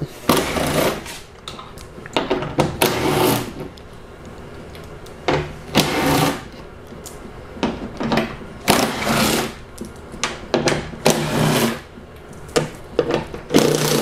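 Cordless power driver with a 10 mm socket spinning bolts out of a car door's inner panel, running in about ten short bursts with brief pauses between them.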